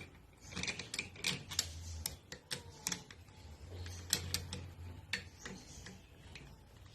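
Allen key loosening the screws on a Karcher K4 pressure washer's pump head: a run of irregular metal clicks and ticks.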